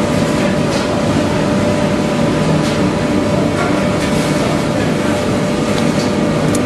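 Wood block making machine running: a steady, loud mechanical hum with a few steady tones and occasional faint clicks.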